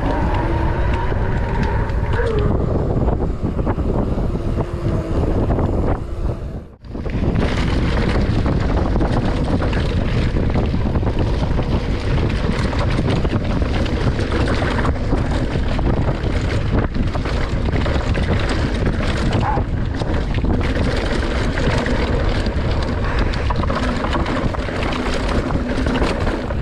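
Wind rushing over the microphone during a fast motorcycle ride, with the engine running underneath. The sound cuts out briefly about seven seconds in, then carries on steadily.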